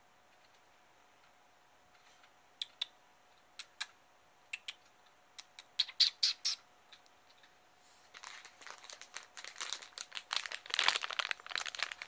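A big pit bull crunching dry kibble off the carpet: scattered sharp crunches at first, often in pairs, then a denser run of crunching and crackle over the last few seconds.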